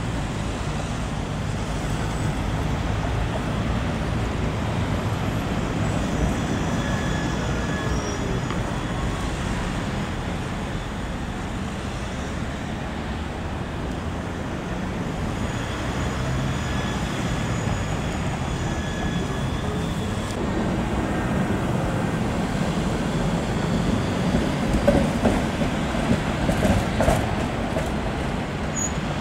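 A tram running on its rails: a steady low rumble with faint, brief high-pitched whines, and a few louder knocks near the end.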